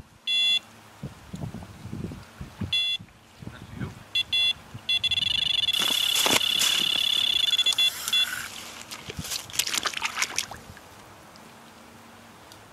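Electronic carp-fishing bite alarm giving a few single beeps, then sounding continuously for about three seconds: a run, a fish taking the bait and pulling line. Rustling and low bumps around it.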